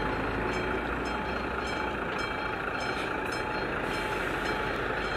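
Level-crossing warning bell striking evenly, about two strokes a second, as the barriers come down, over a steady background rumble.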